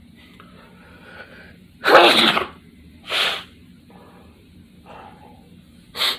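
A person sneezing: a faint build-up, then a loud sneeze about two seconds in, a smaller burst about a second later, and a short sharp burst near the end.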